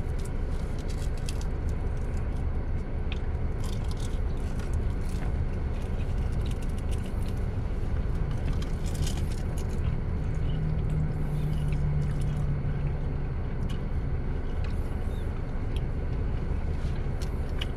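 Chewing with small mouth clicks over the steady low rumble of an idling car heard from inside the cabin. About ten seconds in comes a low hummed 'mmm' lasting about three seconds.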